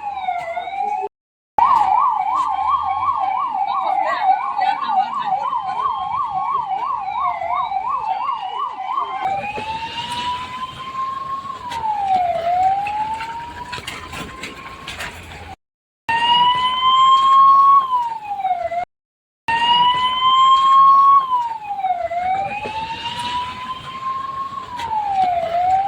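Emergency-vehicle siren sounding, first in a fast yelp for several seconds and then in a slow wail that rises and falls about every three seconds. It is broken by three brief dropouts.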